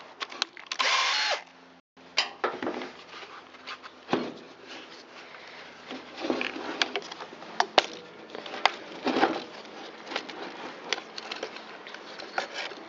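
A cordless drill-driver whirs for about a second at the start, driving screws out of the blower's plastic housing, followed by scattered clicks and clatter of plastic parts and screws being handled.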